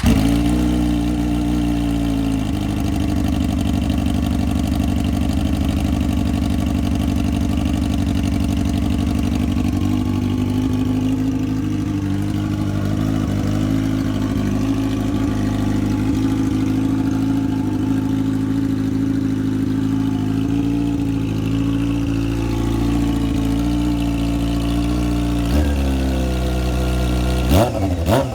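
Honda CBR600 F4i's inline-four engine idling steadily, just after starting, with a quick rev up and back down near the end.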